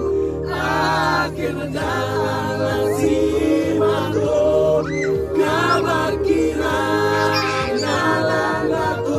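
Music with singing voices: held, sliding vocal notes over a steady low bass.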